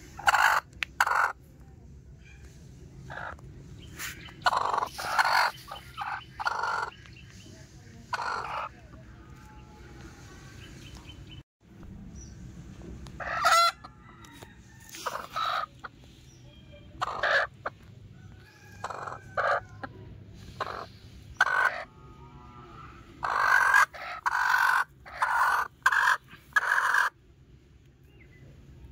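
Broody hens sitting on their eggs, calling again and again in short calls, with a denser run of longer calls near the end.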